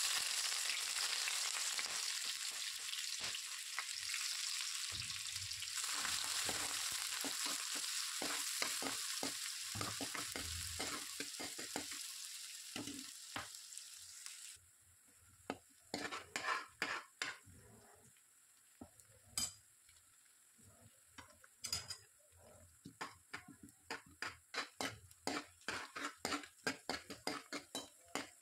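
Food frying in hot oil in a pan, a dense sizzle that ends suddenly about halfway through. After that comes a spoon stirring and scraping in the pan: quick, short scrapes and taps that come faster toward the end.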